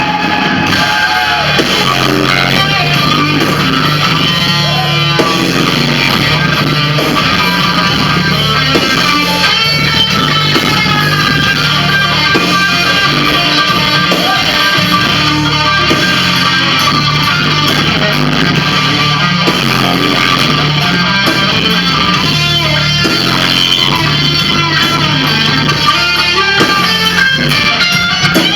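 Live rock band playing loudly, electric guitar to the fore over a steady bass line.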